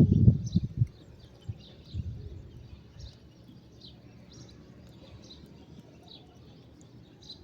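Small birds chirping over and over, short high notes all through, with a cluster of low thumps and rustles in the first second.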